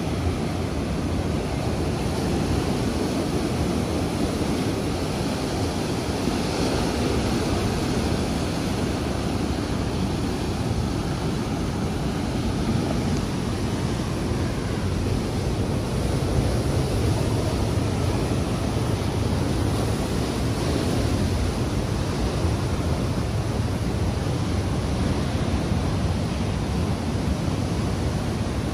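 Atlantic surf breaking in a steady, continuous wash, with wind rumbling on the microphone.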